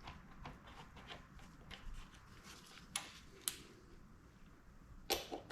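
Faint, scattered clicks and light metallic taps as small gearbox parts are handled and fitted into a motorcycle engine case. Two sharper clicks come about three seconds in, half a second apart, and a quick run of clicks comes near the end.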